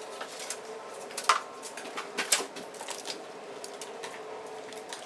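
Scattered light clicks and taps of small parts being handled, with two sharper clicks about a second and two seconds in, over a faint steady hum.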